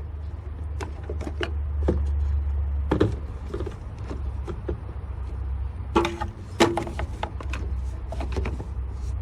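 Handling noise from a recording phone being moved around an engine bay: a low rumble with scattered clicks and knocks.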